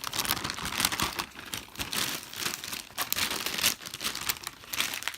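Blind-bag packaging crinkling as it is handled and opened: a dense run of irregular crackles.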